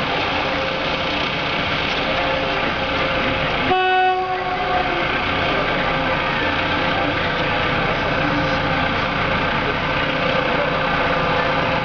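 SM42 diesel locomotive approaching with its engine running, giving one short horn blast of about a second roughly four seconds in; the horn is the loudest sound.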